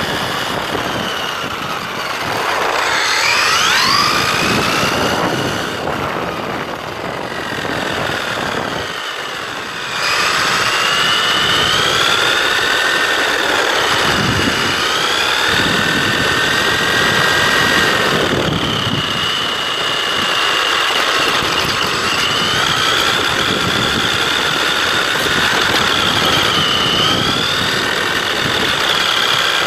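Absima AB1BL radio-controlled buggy's electric brushless motor and drivetrain whining, the pitch rising and falling with the throttle, over the rush of its tyres on asphalt. The whine drops away briefly about nine seconds in, then picks up again and holds fairly steady.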